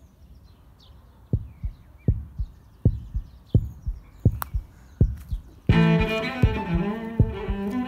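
Intro music: a low, heartbeat-like double thump repeating about every three-quarters of a second, with faint high chirps above it, then bowed strings such as cello coming in near the end.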